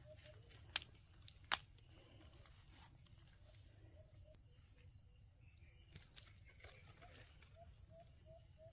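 Steady high-pitched insect chorus of the farm's fields, unbroken throughout, with two short sharp clicks within the first two seconds.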